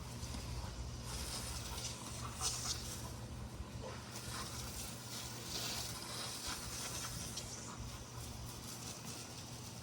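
Garden hose spraying water, an uneven hiss that swells and fades in surges as the stream moves.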